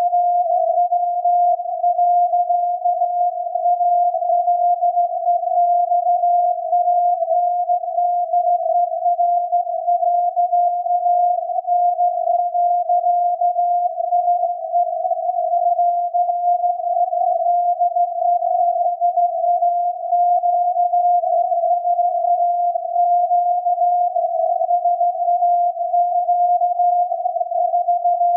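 The VLF signal of SAQ, the Grimeton longwave transmitter on 17.2 kHz, received on a software-defined radio and heard as a steady tone near 700 Hz inside a narrow band of hiss. Its pitch wavers slightly and it runs without Morse keying breaks.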